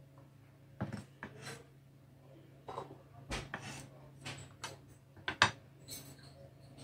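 Knife blade scraping across a plastic cutting board and clinking against a ceramic bowl as cut shallots are swept into it: a string of short scrapes and knocks, the loudest about five and a half seconds in.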